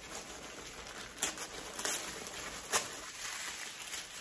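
Tissue paper rustling and crinkling as it is handled and unfolded, with a few sharper crackles.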